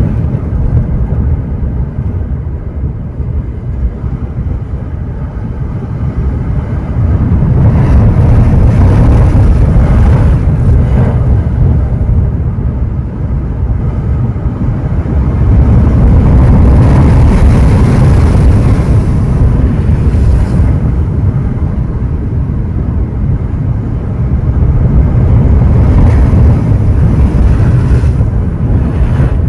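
Ocean surf: waves breaking and washing in continuously, with a deep rumble that swells about every nine seconds as each bigger wave comes in.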